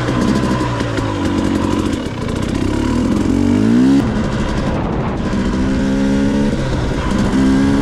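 Two-stroke dirt bike engine under way, its pitch climbing about three seconds in and dropping sharply at about four seconds, then holding steadier.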